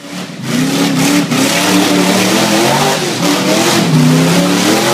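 Rock bouncer buggy's engine revving hard on a steep mud climb, the revs rising and falling over and over, over a loud rushing noise.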